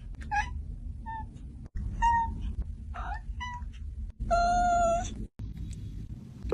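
Cat meowing repeatedly: about six short meows, then one longer, steady meow about four seconds in.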